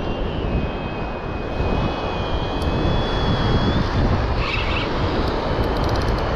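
Wind rushing over the microphone with surf noise, while a Shimano Stradic 5000 spinning reel is cranked against a large hooked fish. A thin high whine runs through the middle, and a short rattle comes about four and a half seconds in.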